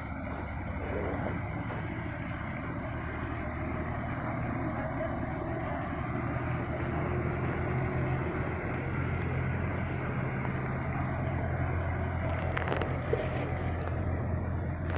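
A motor vehicle engine running steadily, its low hum growing stronger about halfway through, over a steady wash of noise.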